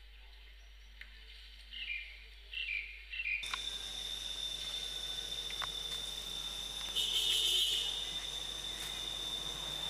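Rainforest insects buzzing steadily, a high thin tone over a hiss that starts suddenly a few seconds in and swells louder for a moment partway through. Before it, three short chirping calls.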